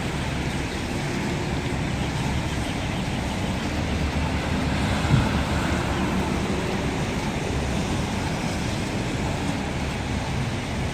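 Steady traffic noise of a busy city street, cars and other vehicles passing, with one short thump about halfway through.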